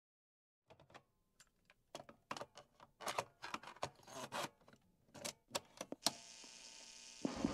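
A run of irregular sharp clicks and short rattles, turning into a steady faint hiss about six seconds in.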